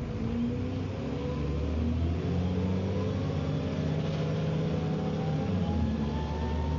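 Dennis Trident double-decker bus pulling away under load, heard from on board: engine running with its noisy rear axle whining, the whine rising steadily in pitch as the bus gathers speed.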